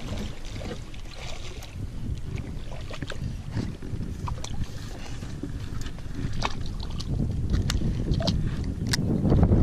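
Wind noise on the microphone, growing louder near the end, with scattered light clicks and ticks from handling a baitcasting rod and reel.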